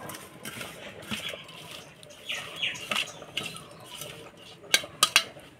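Hands mixing raw peeled prawns with turmeric and salt in a stainless steel bowl: soft, wet squishing and rubbing, with a few sharp clicks against the bowl near the end.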